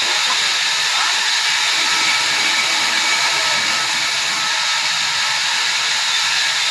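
Sawmill machinery running with a loud, steady hiss.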